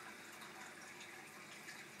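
Faint, steady trickle of water from an aquarium filter's perforated spray bar, with a few small drips.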